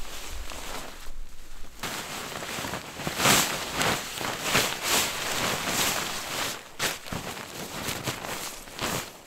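Nylon fabric rustling and swishing as an MSR AC bivy sack and a down sleeping bag are pulled and smoothed by hand, with a few louder swishes a few seconds in.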